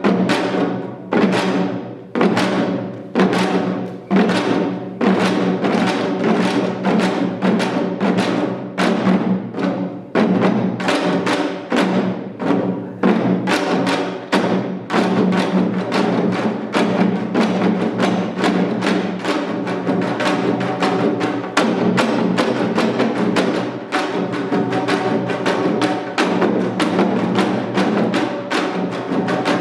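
Janggu, the Korean hourglass drum, played in seated seoljanggu style: a continuous rhythmic stream of sharp stick and mallet strokes on the drumheads. The strokes are spaced with ringing between them at first, then come much faster and denser from about a third of the way in.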